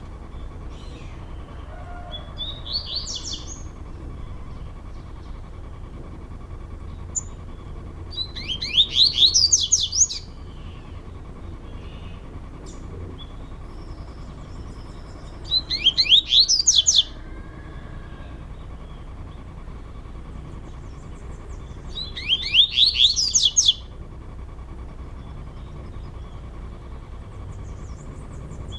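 Male double-collared seedeaters (coleiros) singing against each other in a song dispute. There is a soft short phrase near the start, then three loud phrases about six to seven seconds apart, each a quick run of downward-sweeping whistled notes.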